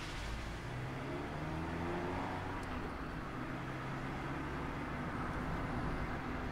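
Mazda ND Roadster's four-cylinder engine accelerating, its pitch rising for about a second and a half, then running steadily under way over a rush of road noise.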